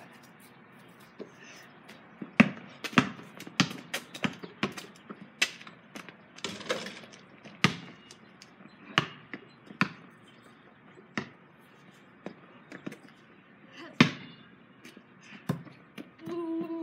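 Basketball bouncing on a paved driveway: a dozen or so sharp, irregularly spaced bounces, several about half a second apart, with a louder hit about fourteen seconds in.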